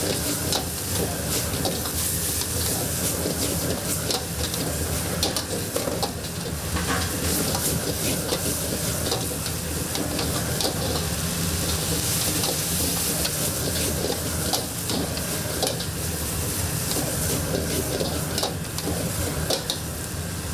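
Food sizzling as it is stir-fried in a wok, with frequent short clicks of a metal ladle against the pan over a steady low rumble.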